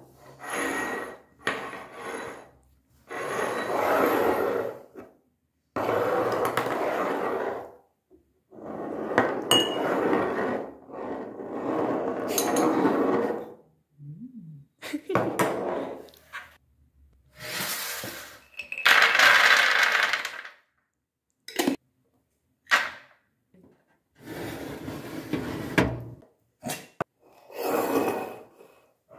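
Glass jars, bottles, ceramic bowls and a small metal pot being set down and slid about on a wooden countertop one after another, clinking, knocking and scraping. The sound comes in short stretches of a second or two, each cut off by dead silence.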